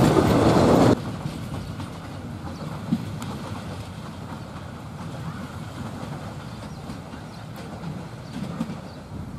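Passenger train coaches rolling past close by, a loud rumble and clatter of wheels on the rails that cuts off suddenly about a second in, leaving a much fainter low rumble of the train moving away.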